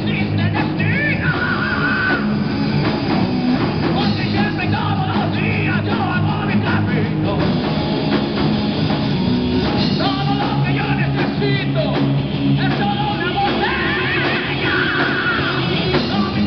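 Rock band playing live: electric guitars and drums with a man singing lead.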